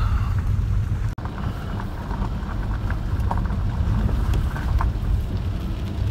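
Inside a moving car in the rain: a steady low rumble of engine and tyres on the wet road, with scattered light taps of rain on the windshield. The sound cuts out for an instant about a second in.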